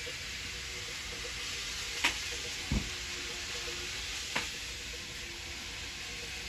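Steady hiss of indoor room noise, broken by two sharp clicks about two and four and a half seconds in and a short low thump between them.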